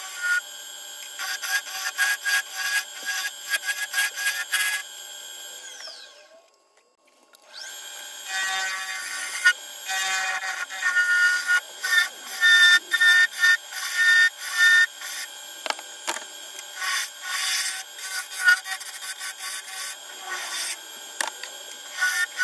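Bowl gouge cutting into the inside of a spinning cherry bowl on a wood lathe, in repeated short scraping passes with wood shavings flying. There is a brief pause about six seconds in.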